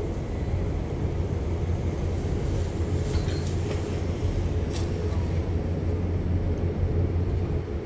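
Steady low rumble and hum of a cruise ship's engines and machinery running while the ship is still at the pier, about to depart. A faint click sounds about five seconds in.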